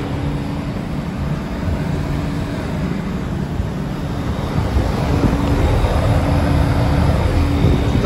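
Rheem RAKA-048JAZ residential air-conditioner condensing unit running: an even rush of air from the condenser fan over a constant compressor hum, steady throughout and a little louder in the second half.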